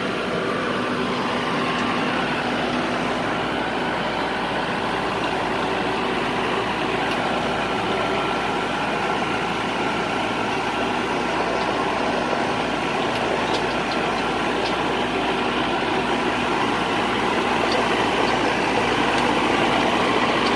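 An engine running steadily at an even speed throughout.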